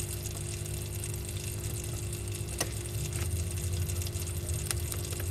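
Steady low hum with a faint hiss, broken by a few faint clicks, the sharpest about halfway through.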